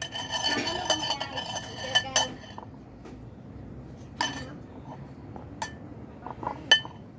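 Eating utensils clinking and scraping against a bowl: a busy run of ringing clinks for the first two seconds or so, then a few single clinks spaced about a second apart.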